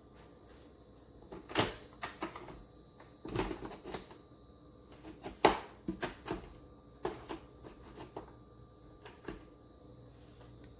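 Irregular knocks and clicks of objects being handled and set down, a dozen or so scattered strikes with the sharpest about a second and a half and five and a half seconds in.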